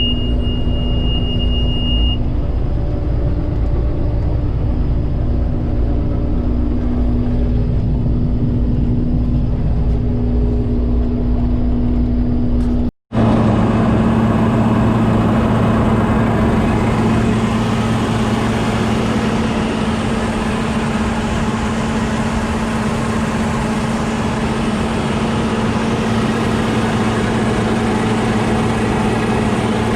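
A vehicle engine running steadily, heard as a constant low drone with a steady hum. About 13 s in there is a short break and the drone carries on with a slightly different pitch. A thin, steady high beep stops about 2 seconds in.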